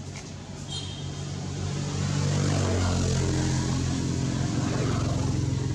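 A motor vehicle engine running nearby, growing louder over the first two seconds and then holding steady.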